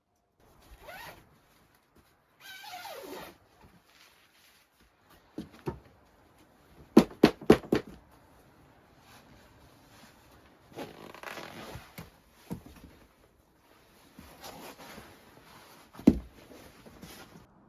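Intermittent rustling and handling noises broken by sharp knocks: four quick knocks about seven seconds in, and a single louder knock near the end.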